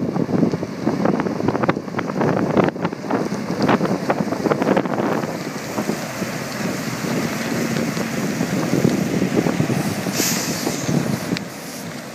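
Kenworth T904 road train truck running, heavily buffeted by wind on the microphone, with a short hiss about ten seconds in.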